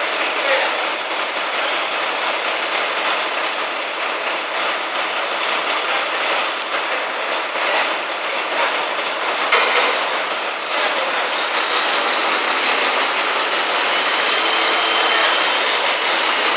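Truck-mounted knuckle-boom crane working a load: steady mechanical noise from the truck engine and crane hydraulics, with a single sharp clank about ten seconds in and a faint high whine near the end.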